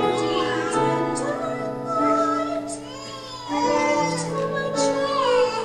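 A solo female voice singing a slow song with vibrato, holding long notes over sustained instrumental accompaniment, with a brief softer phrase about three seconds in.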